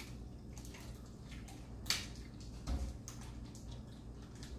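Quiet table sounds of people eating and drinking over a low steady hum: one sharp click about two seconds in and a soft low thump just under a second later.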